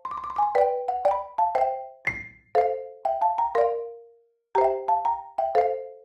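Background music: a light melody of short struck notes, each ringing out and fading, with a brief pause about four seconds in.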